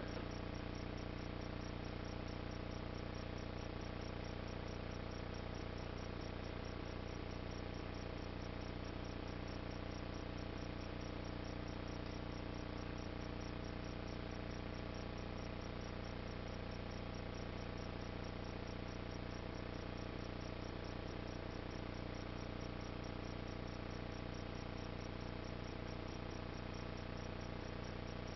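A steady hum with a buzz over it, many held tones that never change.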